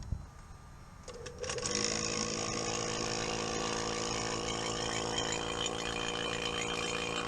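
Refrigeration vacuum pump switched on after a couple of clicks about a second in; its motor spins up and then runs steadily, pulling a vacuum on the freezer's refrigerant system.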